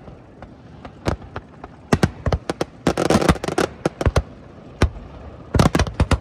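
Aerial fireworks shells bursting in a string of sharp bangs and crackles. A dense flurry comes about three seconds in and another near the end, with single reports in between.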